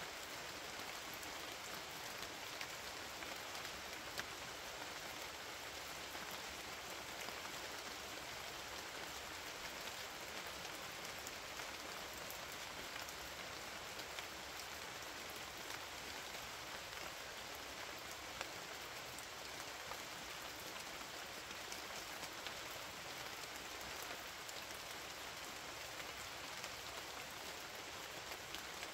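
Steady rain falling, with scattered sharper drop hits standing out, a few of them louder.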